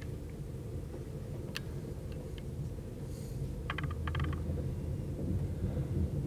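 Night Riviera sleeper train heard from inside the coach as it runs along the platform: a steady low rumble of wheels on the track, growing a little louder in the second half, with a few short clicks and rattles.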